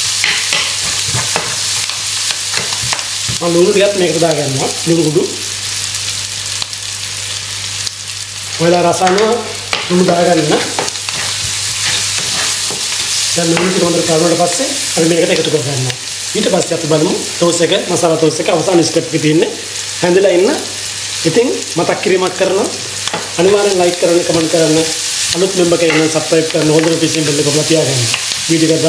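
Sliced onion and green chilli sizzling in oil in a non-stick frying pan while a spatula stirs them, scraping the pan in repeated strokes. A steady low hum runs underneath.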